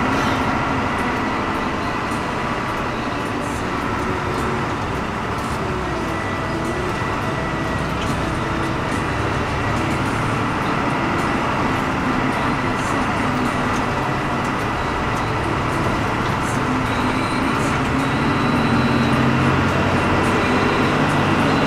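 Hino AK front-engined diesel bus under way: engine running with steady road noise, getting a little louder near the end as the engine pulls harder.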